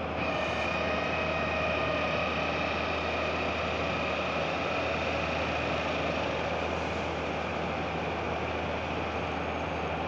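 Heavy construction machinery running steadily: a low engine hum under a constant high whine.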